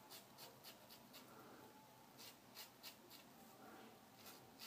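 Faint, short rasping strokes of a Merkur 34C double-edge safety razor cutting stubble through shaving lather, a few strokes a second in short runs.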